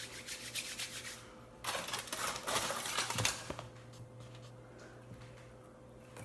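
Small items clicking and clattering as things are moved around and taken out of a fridge: a run of light clicks, then a louder stretch of clatter and rustling a little under two seconds in, thinning to a few faint clicks.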